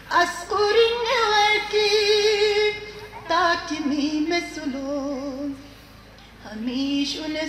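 A woman's solo voice singing a devotional prayer unaccompanied, holding long notes with a wavering vibrato. She pauses briefly about six seconds in, then starts the next phrase.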